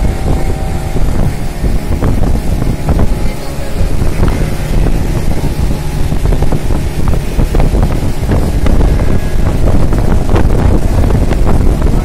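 Motorboat engine running steadily while the boat is under way, with wind buffeting the microphone.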